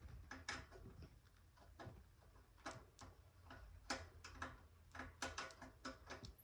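Faint, irregular light clicks and taps of bicycle mudguard parts and tools being handled and fastened, some coming in quick pairs.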